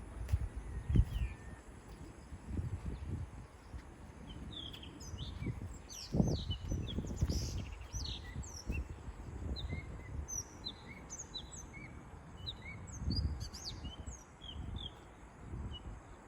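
Small birds chirping repeatedly in short rising and falling notes, more of them from about five seconds in, over irregular low rumbles that swell and fade, loudest about a second and six seconds in.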